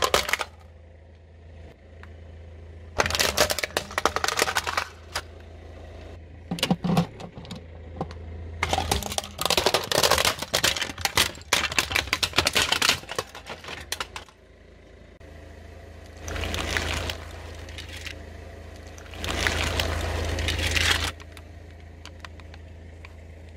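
Hard black plastic cracking and snapping under a car tyre in several bursts of rapid crackling. Later come two longer stretches of dense crushing noise as plastic bottles of coloured slime are flattened under the wheel.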